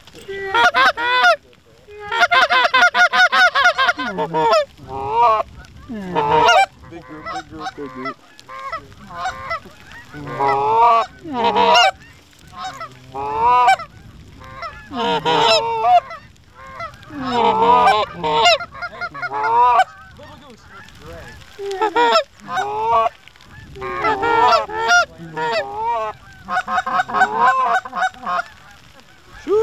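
Canada goose honks and clucks in rapid, loud, repeated runs, with short pauses between the runs.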